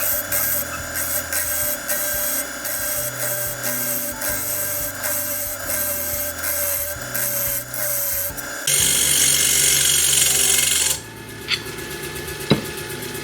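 Spindle gouge cutting into a wood blank spinning on a small bench lathe: a rasping hiss that pulses about three times a second, then runs louder and unbroken for about two seconds. The cut then stops, leaving the lathe's motor hum and one click.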